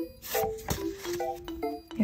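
Background music: a light melody of short, separate notes, a few per second.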